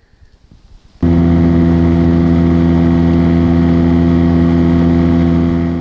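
A boat motor running steadily at one unchanging pitch, starting abruptly about a second in.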